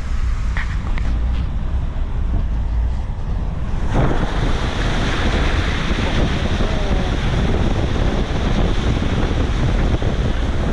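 Mercedes-Benz Sprinter van driving through floodwater about a foot deep over the road. A low rumble from the van, then about four seconds in a sudden loud rush of water spraying off the wheels, mixed with wind, that stops near the end.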